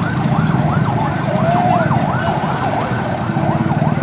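Electronic siren-type warning alarm warbling fast, its pitch sweeping down and up about three times a second, over an engine running low and steady.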